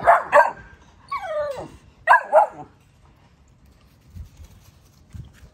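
American bully puppies barking and yelping: a few sharp barks at the start, a long falling whine about a second in, and another pair of barks around two seconds.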